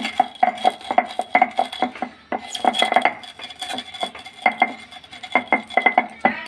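Wooden rolling pin crushing dry-roasted whole spices (coriander seeds, cumin, black peppercorns, cloves, fennel) on a slab: a quick, irregular run of knocks and crunches as the pin rolls and presses over the seeds.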